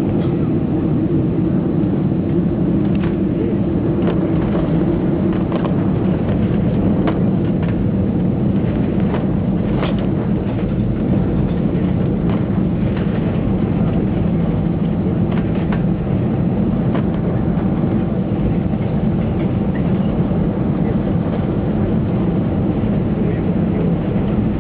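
Airbus A320 cabin noise: a steady low engine and airframe rumble, with scattered rattles and knocks between about 3 and 17 seconds in.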